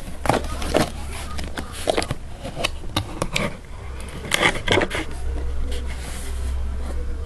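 Handling noise: a string of irregular clicks, knocks and scrapes, with things being moved and rustled about, over a low steady hum.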